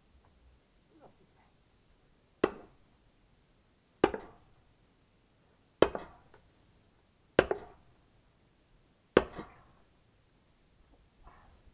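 An axe splitting firewood on a chopping block: five sharp chops, evenly spaced about a second and a half apart.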